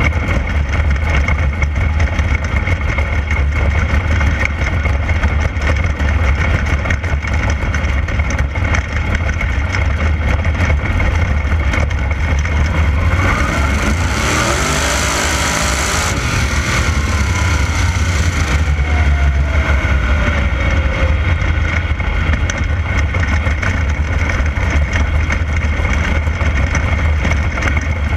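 360 sprint car's V8 engine running hard at racing speed, heard from on board the car with a heavy low rumble. About halfway through it turns louder and harsher for several seconds, with a tone that slides downward before settling back to a steady drone.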